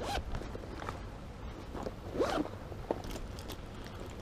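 Scattered clicks, scrapes and rustling of fishing gear being handled by hand, with one short squeak that rises and falls in pitch about two seconds in.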